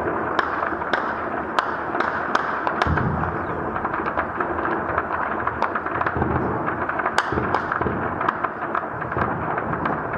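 Sustained gunfire during armed clashes: irregular rifle shots crack and echo several times a second over a continuous background of fire, with one louder shot about seven seconds in.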